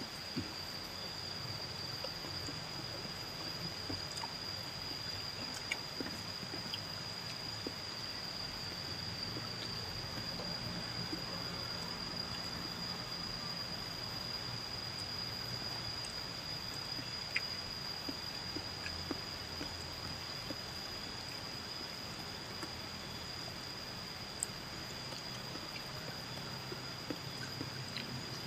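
Quiet eating sounds from people eating by hand off banana leaves: faint chewing and small scattered clicks, over a steady high-pitched whine and background hiss.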